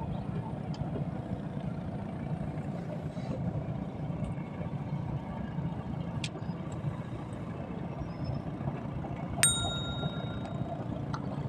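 Steady low rumble with a few faint ticks, and a single bright bell-like ding about nine and a half seconds in that rings for about a second.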